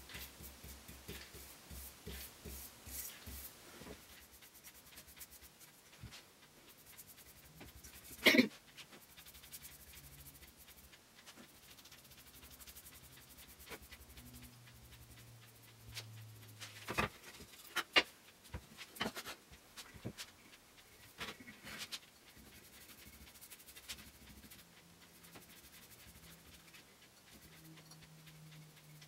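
Paintbrush strokes on bare pine as clear satin varnish is brushed on with the grain: a soft, rapid scratching. A sharp knock comes about eight seconds in, and a cluster of knocks follows later on.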